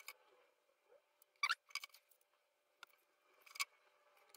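Small plastic clicks and rustles of jumper wires being pushed onto a sensor's connector by hand, a handful of short sharp sounds spread across the few seconds.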